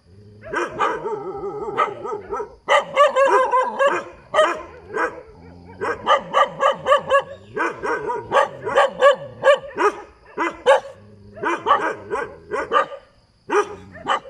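Dog barking in quick runs of short, loud barks, with a few longer wavering calls among them in the first seconds and brief pauses between runs.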